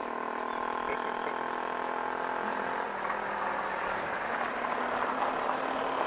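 A motor engine running steadily, a hum with a constant higher tone.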